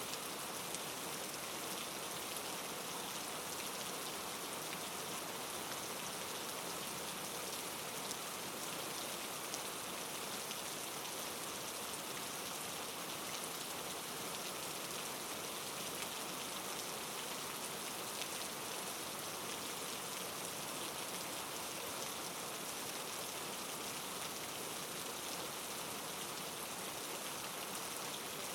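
Steady rain falling, an even hiss of drops on a surface with faint scattered pattering.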